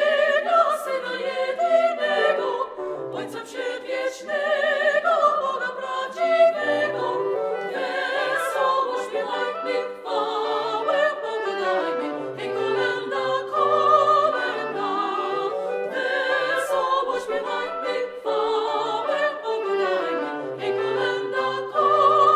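Classical-style choral music: a choir singing with strong vibrato over orchestral accompaniment, playing without a break.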